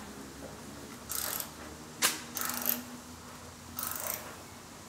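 Ratchet spanner clicking in about four short bursts, with one sharp click about two seconds in, as the bolts holding a replacement front wing are tightened at the wheel arch.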